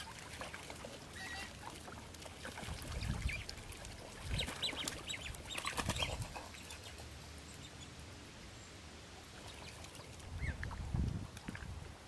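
Mallards and young American coots scuffling at the water's edge: wing-flapping and splashing in the water with a few bird calls, the loudest cluster about halfway through.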